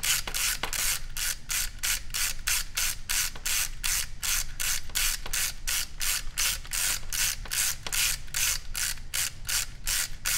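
Canon Dial 35 spring motor being wound by twisting its winding grip, its film-advance gears giving a steady run of clicking rasps, about four or five a second. The gears and spring motor have just been cleaned of old grease and dosed with graphite lubricant, and they are being run in.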